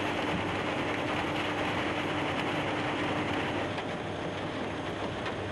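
Nordberg LT1213 track-mounted mobile impact crusher running while fed by an excavator: steady, dense machinery noise. A steady hum in it drops out about three and a half seconds in, and the noise is slightly quieter after that.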